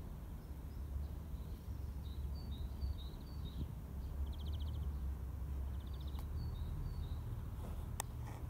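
Small songbirds chirping in short high notes, twice breaking into a brief rapid trill, over a steady low rumble. A single sharp click comes near the end.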